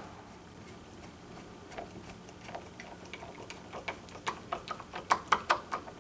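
Screwdriver driving the screws that hold a door latch plate in the door edge: a run of sharp clicks, sparse at first, then coming faster and louder over the last two seconds.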